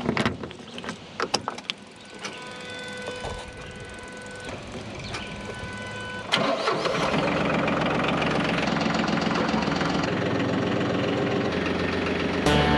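Ferris zero-turn mower's engine: a few clicks and a faint steady whine, then about six seconds in the engine starts and runs steadily.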